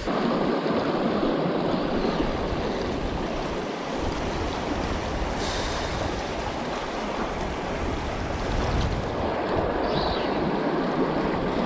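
Rushing river water: the steady flow of a fast tailwater current.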